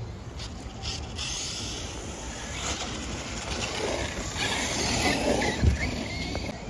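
Traxxas Slash 2WD radio-controlled short-course truck driving past on a track: a rushing motor-and-tyre noise grows louder as it approaches, with a single thump about a second before it fades.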